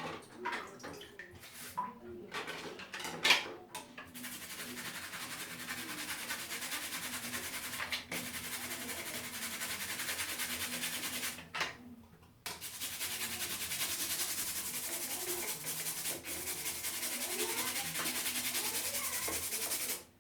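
Rapid, steady scrubbing of a plastic Lego plate with toothpaste to clean off yellowing and grime. A few light clicks and knocks of the plastic come first, then the scrubbing starts about four seconds in and runs on, with a brief pause about twelve seconds in.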